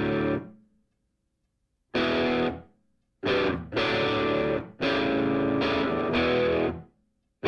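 Background rock music: distorted electric guitar chords played in short stop-start hits, with dead silence between them.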